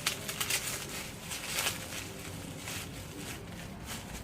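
Packaging being handled and unwrapped, irregular crinkling and rustling that is strongest in the first two seconds and then dies down.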